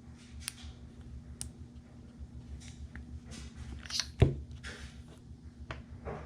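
Small clicks and taps of a Samsung Galaxy Note 10+ and its S Pen being handled, with one sharper knock about four seconds in, over a low steady hum.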